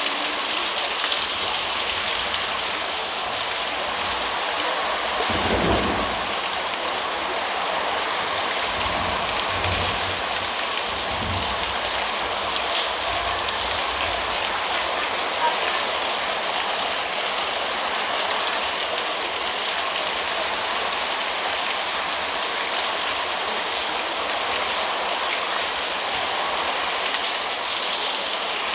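Heavy rain pouring steadily onto surfaces, a dense even hiss, with a few brief low rumbles swelling up about six and ten seconds in.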